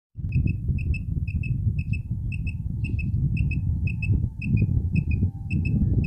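Quail call: a short, clear two-note chirp repeated evenly about twice a second, over a loud low rumble.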